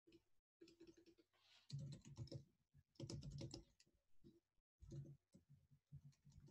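Faint typing on a computer keyboard, keystrokes coming in short runs with brief pauses between.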